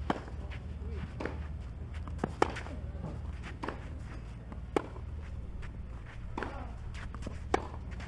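Tennis ball struck by rackets in a rally: four sharp hits spaced about two and a half seconds apart, with fainter knocks of the ball bouncing between them. Under the hits are a steady low hum and faint wavering voice sounds.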